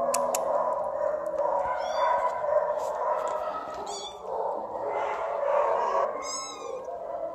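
Young kittens mewing, with shrill, arching high-pitched cries about two, four and six and a half seconds in.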